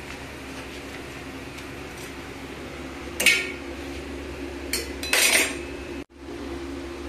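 A metal pan and utensils clattering on a gas stove: one sharp clank about three seconds in, then a short run of clatters around five seconds in, over a steady fan hum.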